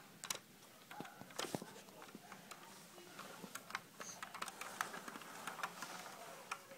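Faint, irregular taps and clicks, several a second, of a baby crawling on a rug and patting at board books and toys.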